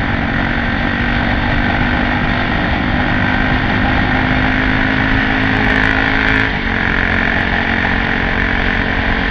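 2001 Honda XR650L's air-cooled single-cylinder engine running through a White Brothers E-series exhaust while riding at steady speed, with heavy wind rush on the helmet camera. About six and a half seconds in, the engine note dips briefly and settles slightly lower in pitch.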